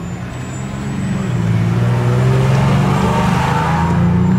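A heavy engine accelerating: a low drone that rises slowly in pitch and grows louder over the first three seconds, then holds.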